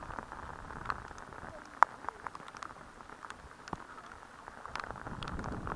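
Choppy water washing against a sea kayak's hull as it is paddled, a steady splashy hiss with scattered sharp drips and splashes, the sharpest about two seconds in.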